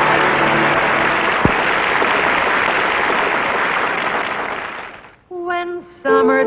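Audience applause, steady at first, fading out about five seconds in. A voice starts speaking just after it.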